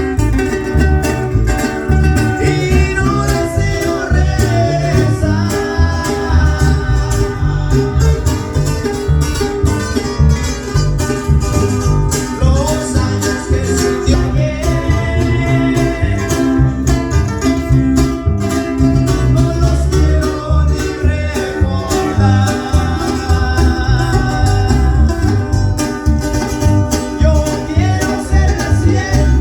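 A live band playing a song: singing over guitars and a strong bass with a steady beat.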